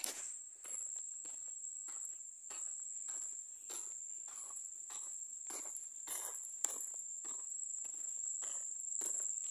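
Footsteps crunching on a gravel road, about two steps a second, with a steady high-pitched insect drone behind them.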